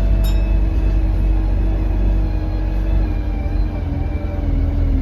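Inside an Alexander Dennis Enviro200 diesel bus under way: low engine and road rumble with a steady engine note that slowly falls in pitch as the revs drop. A faint high whistle runs above it, the turbo whistle that the uploader puts down to a turbo leak. There is one sharp click just after the start.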